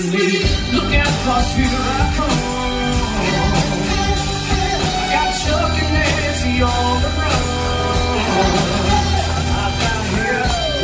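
Live band music with a man singing in a ventriloquist puppet's voice, part of a parody song. A steady bass line runs under a gliding vocal melody.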